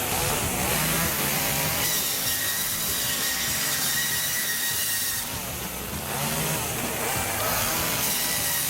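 Petrol chainsaw running at high revs and cutting, with a steady high whine from about two seconds in that eases off after about five seconds.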